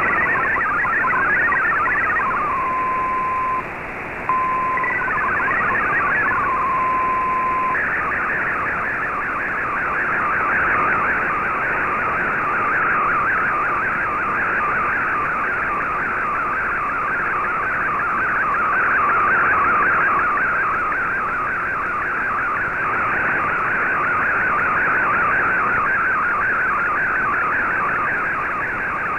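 MFSK digital-mode data signal from a shortwave broadcast, received on an AM communications receiver over a bed of static hiss. It opens with the warbling tones of MFSK64 text, then holds a single steady high tone for a few seconds, broken by a brief gap and a short burst of data tones. From about eight seconds in comes the dense, unbroken warble of an MFSK colour picture being sent.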